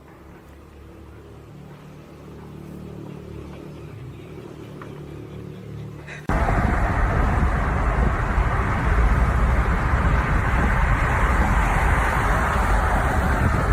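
A motor vehicle running: a low steady hum that slowly grows louder, then a sudden loud rushing noise about six seconds in.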